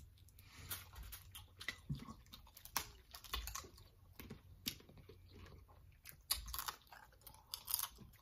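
Boiled crawfish being peeled and eaten close to the microphone: irregular small cracks and snaps of the shells, with chewing and mouth sounds.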